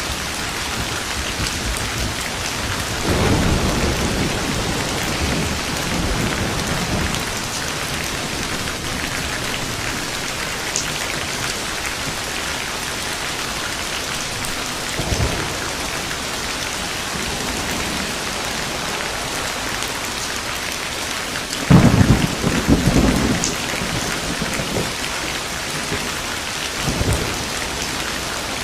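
Steady rain falling, with rolls of thunder through it. There is a rumble about three seconds in and smaller ones around the middle. The loudest is a sudden crack and rumble about three-quarters of the way through.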